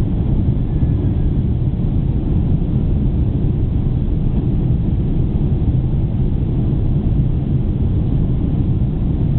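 Steady low cabin drone of a Boeing 747-400 in flight: its engines and the rushing airflow heard through the fuselage from a window seat over the wing.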